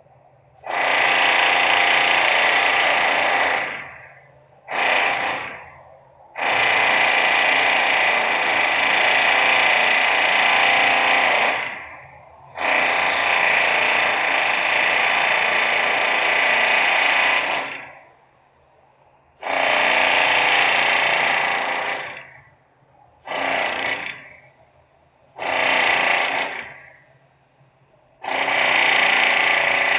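Loud industrial power-tool noise in eight bursts of one to five seconds each, with short, much quieter gaps between them.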